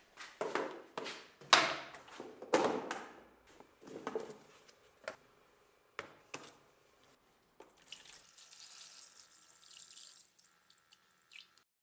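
Several sharp knocks and clatters of a steel axe head and a plastic tub being handled on a workbench. Then, about eight seconds in, liquid splashes and pours from a bottle into the tub: iron chloride solution covering the axe head to etch it.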